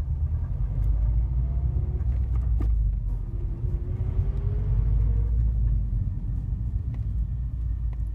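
Subaru STI's flat-four engine idling, a steady low rumble, with a few light clicks.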